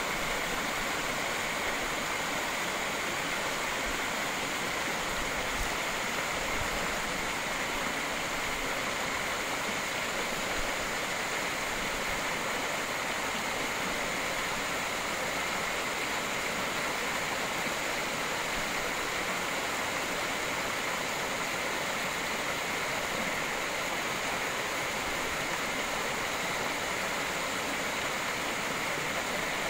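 Small waterfall spilling over rocks into a shallow pool: a steady rushing splash of falling water, even throughout.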